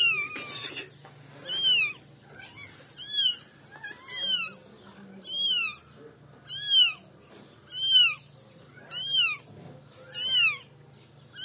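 A newborn tabby kitten mewing over and over: high-pitched cries that rise and fall, one a little more than every second, calling for its mother.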